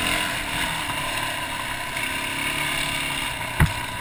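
Off-road motorcycle engine running at low revs, with one sharp, heavy thump about three and a half seconds in.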